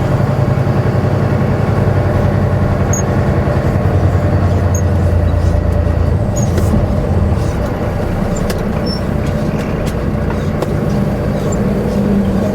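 Semi truck's diesel engine running at low speed as the rig eases into a spot; the low engine hum eases off about seven seconds in.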